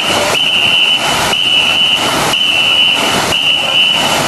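Many paddles striking the water together about once a second as a large crew of ngo boat rowers strokes in unison. Between the strokes a high whistle tone sounds at one steady pitch, breaking off on each stroke and keeping the rowing rhythm.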